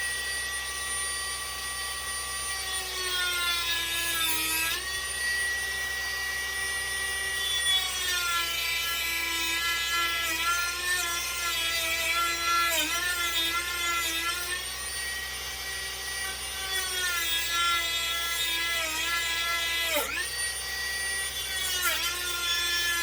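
Dremel rotary tool cutting through a wooden dowel: a steady high motor whine that sags in pitch each time the wheel bears into the wood, then picks back up.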